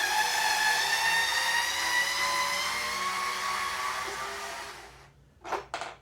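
Cordless drill/driver running in reverse, backing a screw out of the air compressor's plastic handle: a steady motor whine that starts suddenly, rises slightly in pitch and fades out after about five seconds. Two short knocks follow near the end.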